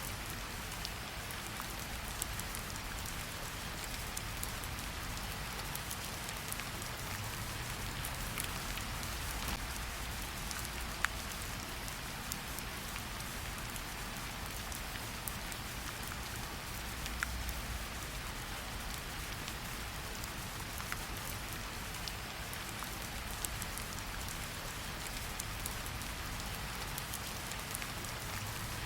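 Steady rain falling and pattering on a surface, with scattered individual drop ticks.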